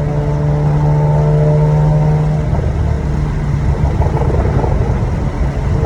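Mazda RX-8's street-ported rotary engine running loud in a tunnel. It holds a steady drone for about two and a half seconds, then turns rough and choppy for the rest.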